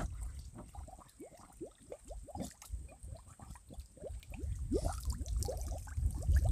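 Five-litre plastic bottle fish trap being held under lake water as it fills, air escaping from it in a run of small gurgling bubbles, each rising quickly in pitch. A low rumble grows near the end.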